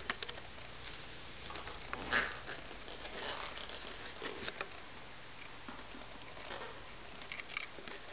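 Scattered light clicks and rustling handling noise, with a brief louder rustle about two seconds in and a quick run of clicks near the end.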